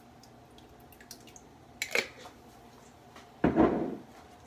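Thick tomato sauce being poured from a jar into a skillet of meat sauce. There are a couple of sharp clinks about two seconds in, then a louder wet plop near the end as a glob of sauce drops into the pan.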